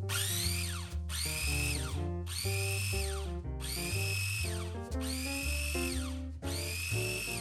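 Electric kitchen mixer motor switched on in short bursts about six times, each whine rising in pitch, holding briefly, then winding down, over background music.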